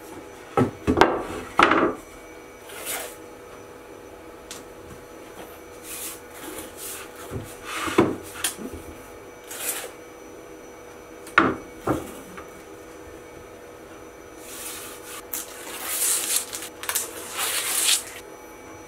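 A plywood board being handled on a CNC's MDF spoil board: a few sharp wooden knocks as it is set down and shifted, then a longer stretch of rubbing and scraping near the end.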